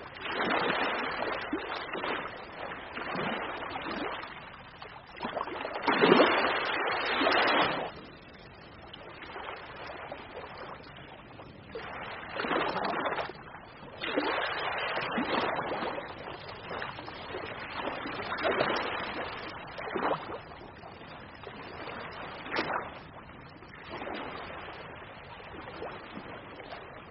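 Ocean waves breaking and washing ashore, in irregular surges that swell and fade, the biggest about six seconds in.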